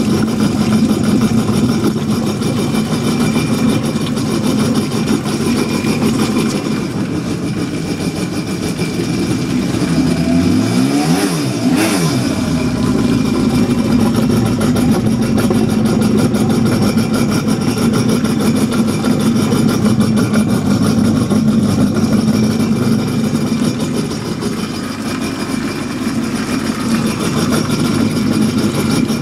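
2007 Honda AquaTrax F-12X personal watercraft's turbocharged four-stroke engine running at idle with a lope in its exhaust. About eleven seconds in the pitch briefly sweeps up and down.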